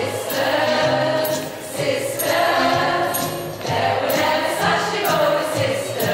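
Background music: a song with singing voices over a full instrumental backing.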